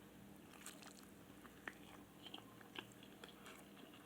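Faint mouth sounds of a man biting into and chewing a fried spicy chicken sandwich: soft, scattered small clicks and crunches.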